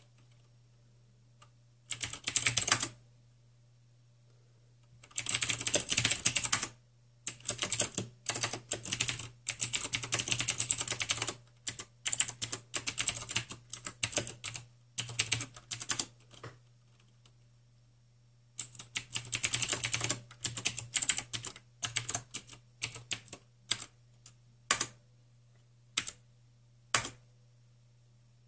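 Typing on a computer keyboard in several quick runs of keystrokes separated by pauses, ending in a few single key presses, over a steady low hum.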